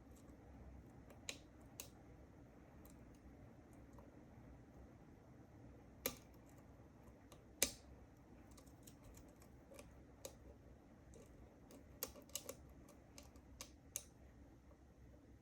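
Sparse, irregular small metallic clicks and ticks of a lock pick and tension wrench working the pins of a Weiser key-in-knob lock cylinder fitted with serrated and spool security pins. Two louder clicks come about six and seven and a half seconds in, and a quick run of clicks near the end.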